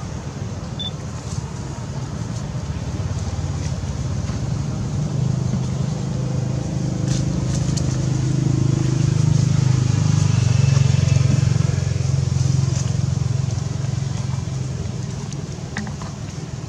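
Low motor-vehicle engine hum, swelling to its loudest a little past halfway through and then fading, as a vehicle passes. A few faint clicks sit over it.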